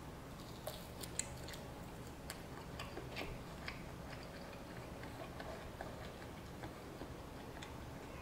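A person chewing glazed pork ribs: irregular wet clicks and smacks of the mouth and lips, coming thickest in the first few seconds and thinning out later.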